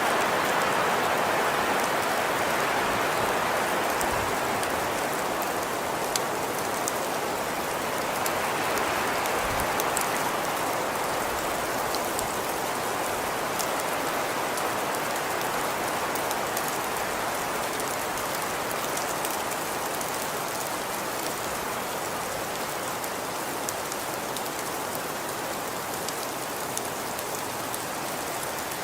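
Steady rain falling: a dense, even hiss with scattered sharp drop ticks.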